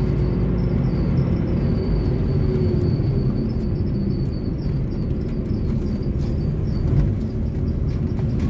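Ford Verona with its VW AP four-cylinder engine, heard from inside the cabin while driving in traffic: a steady low engine and road rumble.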